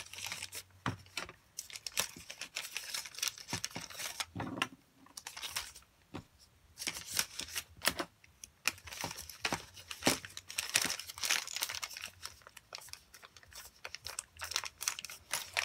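Packaging crinkling and rustling as it is handled: a run of irregular quick crackles with brief pauses.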